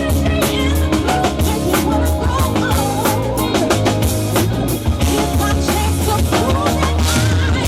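Live band music: a drum kit with bass drum and snare keeping a steady beat under bass and a wandering melodic line.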